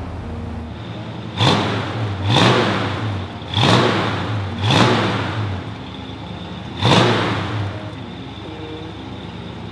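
1966 Ford Mustang GT's 289 Hi-Performance V8, freshly started, idling through its GT dual exhaust and blipped five times, each rev falling straight back to idle. The last and sharpest rev comes about seven seconds in, then the engine settles to a steady idle.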